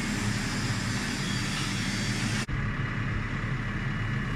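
A vehicle engine idling steadily, with a momentary break about halfway through.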